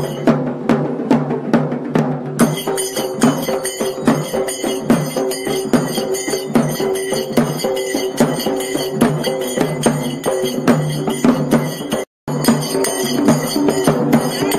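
Large rope-laced barrel drum (dhol) beaten with sticks in a fast, steady beat, over steady pitched tones from accompanying music. The sound cuts out for a split second near the end.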